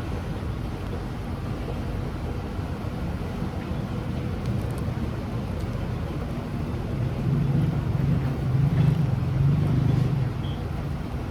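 Street traffic: a steady low rumble of motor vehicles, with a nearby engine running louder for a few seconds in the second half.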